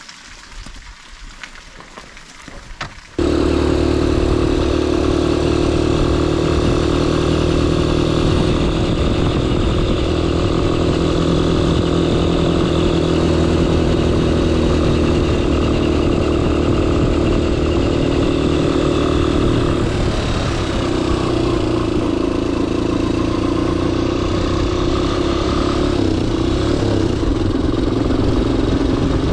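A small engine or motor running steadily at an even speed. It cuts in suddenly about three seconds in and holds its pitch, with a slight shift about two-thirds of the way through.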